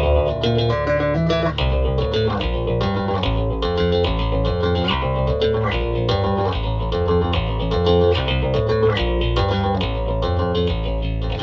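Mayones multiscale extended-range bass, tuned down to a low G with very heavy strings, played as a quick run of picked notes, several a second, over ringing low notes, through an Origin Effects Cali76 compressor pedal.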